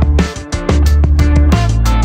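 Background music with a steady beat and heavy bass, dipping briefly about half a second in.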